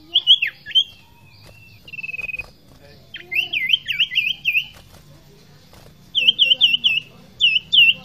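Common iora singing loudly: a few whistled notes, a short buzzy trill about two seconds in, then quick runs of four or five up-and-down slurred notes, repeated near the end.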